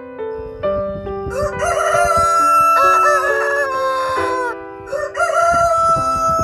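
Rooster crowing twice, a long crow and then a shorter one, over background piano music.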